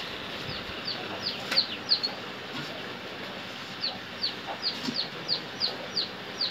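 A bird chirping: two quick runs of short, high, falling notes, about three or four a second, over a steady background hiss.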